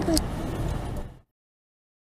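Car cabin and road noise picked up by a dashcam in a slowly moving car, with a brief voice sound right at the start; about a second in it fades out to dead silence.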